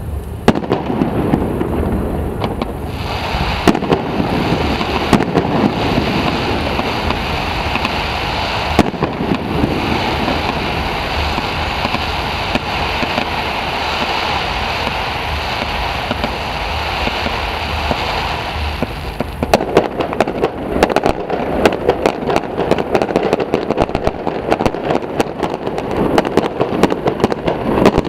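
Fireworks display: a continuous fizz and crackle, broken by many sharp bangs. About twenty seconds in, the crackle turns denser, into a rapid stream of small pops.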